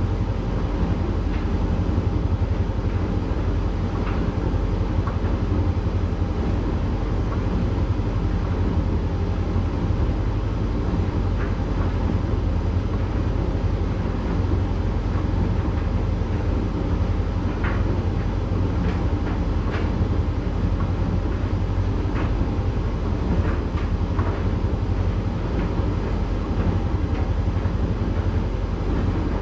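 Candy GrandO tumble dryer running a heated drying cycle on its Rapid 40 programme, the drum turning a small load of towels: a steady low rumble and hum with occasional faint light ticks.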